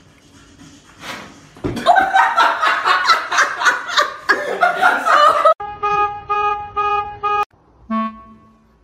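A person laughing hard for about four seconds, then short horn-like tones of one pitch repeated three or four times a second.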